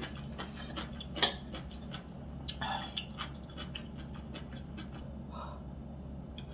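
Eating sounds: metal chopsticks and a metal spoon clicking against a stainless steel bowl and a plate, with a sharper clink about a second in, and soft chewing between clicks, over a low steady hum.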